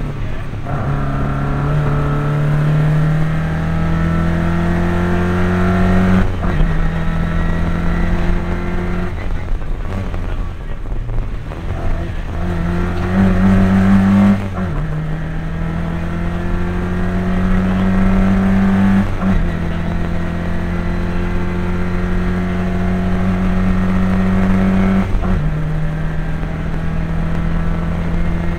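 Rally car engine heard from inside the cabin, accelerating hard through the gears: its pitch climbs steadily in each gear and drops sharply at each of several upshifts, with a brief lift off the throttle about halfway through before it pulls again.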